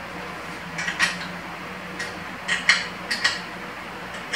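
Small metal parts of a balance bike's rear wheel axle clinking as they are handled and fitted by hand: about six sharp clicks, mostly in close pairs, over a steady low hum.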